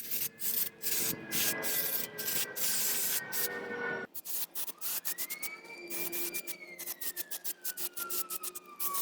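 Quick, repeated hand-scrubbing strokes of an abrasive across a brake rotor surface, many strokes a second. In the second half a siren wails faintly behind it, rising and then slowly falling.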